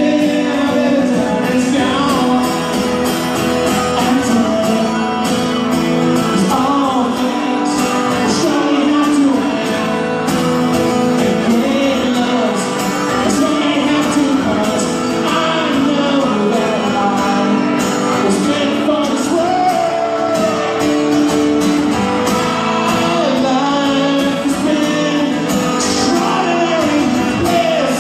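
A man singing and strumming an acoustic guitar in a live solo performance, with no break.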